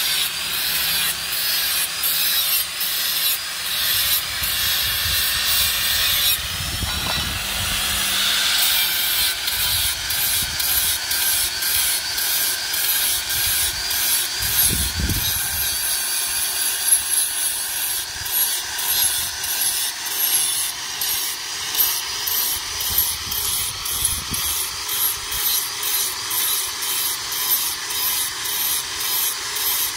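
Electric angle grinder's abrasive disc grinding the edges of steel cleaver blades to sharpen them. It runs steadily, and in the second half it pulses in quick regular strokes, about two a second, as the disc is worked along the edge.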